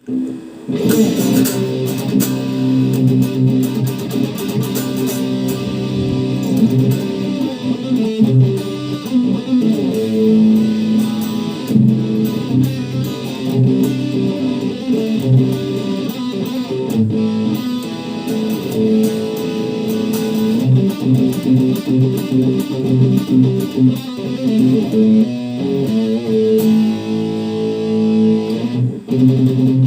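PRS SE Standard 24 electric guitar played through an overdrive pedal into a Randall combo amp, giving a driven tone. It plays a continuous run of held chords and note lines that keep changing pitch.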